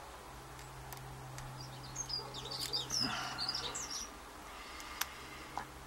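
A bird chirping in a quick run of short sliding calls for a couple of seconds in the middle, over a faint steady hum, with a couple of light clicks.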